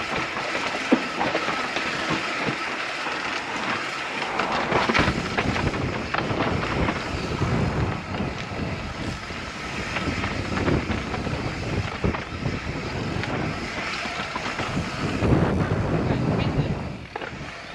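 Mountain bike rolling down a dry, rocky dirt trail: a steady rush of tyre noise on dirt, broken by many short knocks and rattles as the bike goes over rocks and bumps.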